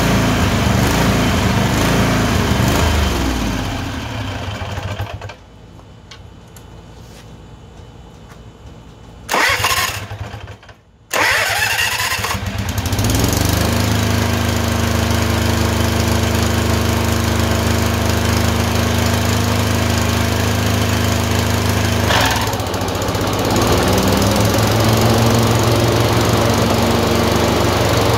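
Tecumseh 22 HP twin-cylinder engine running, then winding down and going quiet a few seconds in. It is started again about ten seconds in, revs up and runs steadily. Near the end its speed sags and climbs back once: the surging that the owner puts down to a random misfire alternating between the two cylinders.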